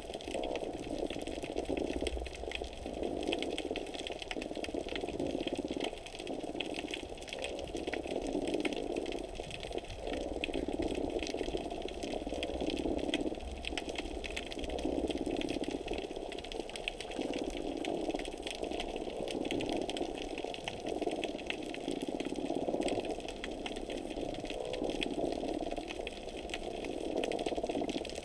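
Underwater ambience under a pier, recorded through a GoPro housing: a constant fine crackling with a muffled rushing that swells and fades every second or two.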